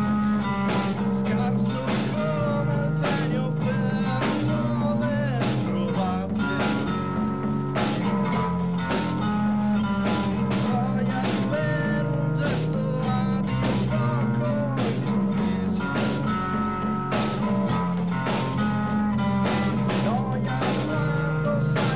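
Rock band playing live: a drum kit keeps a steady beat under electric guitar and bass lines, some with bent notes.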